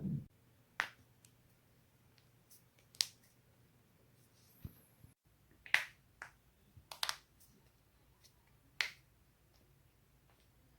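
Neck joints cracking: a series of about seven sharp pops at irregular intervals, two of them in quick succession about seven seconds in.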